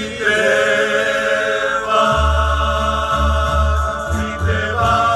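Rondalla playing live: male voices hold long chords over guitars, changing chord twice, with deep double bass notes coming in about two seconds in.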